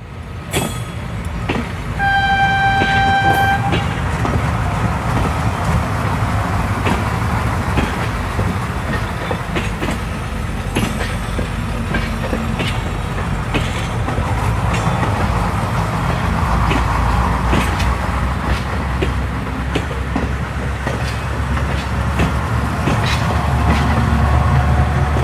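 Train departing: one steady horn note about a second and a half long near the start, then the low rumble of the train getting under way, with scattered clicks and knocks of the wheels over the rails. The low rumble grows heavier about two-thirds of the way through and again near the end.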